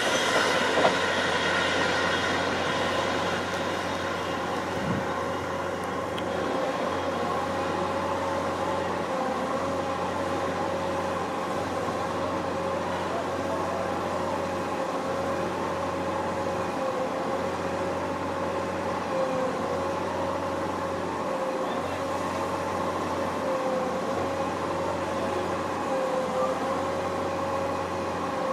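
Siemens Desiro electric multiple units on the move: a Class 444 passes close by at the start, louder for the first few seconds. A steady, slightly wavering electric whine runs over a low rail rumble.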